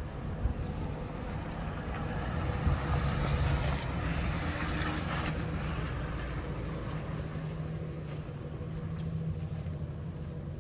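A pickup truck's engine running as it drives slowly, a steady low hum under road and wind noise that swells for a moment about four seconds in.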